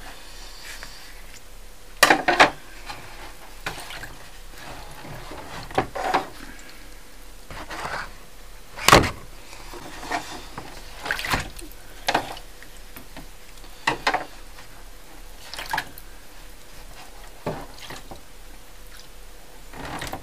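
Lith developer sloshing in a plastic darkroom developing tray as the print is agitated, with irregular knocks and taps of the tray and tongs every second or two. The loudest knock comes about nine seconds in.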